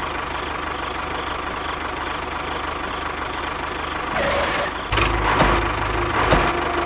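An engine running steadily, growing louder and heavier about five seconds in, with a few knocks.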